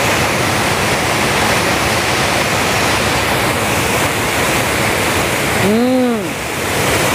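Water rushing steadily over a lake's overflow weir in a small cascade close by. About six seconds in a person hums briefly, the pitch rising then falling.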